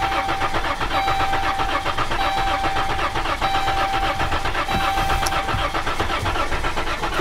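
Starter cranking a Chrysler 3.6-litre V6 over steadily with the accelerator floored. The technician takes the way it cranks as the sign of low compression on one or more cylinders.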